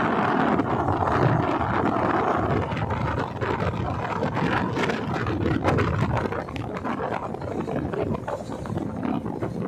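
Wooden motorboat under way: a steady engine drone under water rushing and splashing along the hull, with wind buffeting the microphone.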